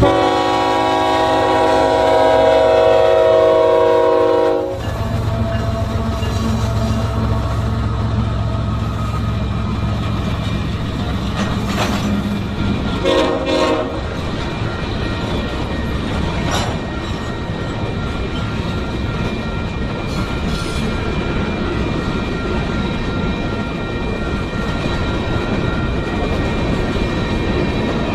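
Union Pacific freight train passing: the lead diesel-electric locomotive's horn blows a chord for about four and a half seconds at the start, with a second short horn sound about thirteen seconds in. The locomotives and freight cars then rumble past, wheels clacking and clanking over the rail joints.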